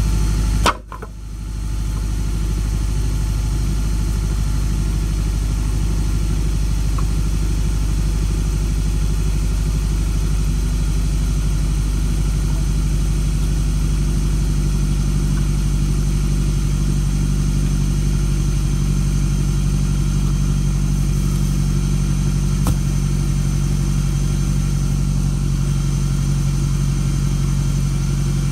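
Turbocharged Acura RSX's four-cylinder engine idling steadily. The sound drops out briefly about a second in.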